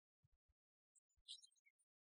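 Near silence, broken by a few faint low thumps and faint crackle.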